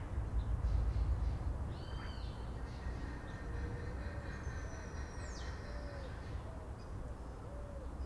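Birds calling over a low steady rumble of forest ambience: a run of about five short, low hooting notes in the second half, with a few thin high whistles and one quick falling whistle.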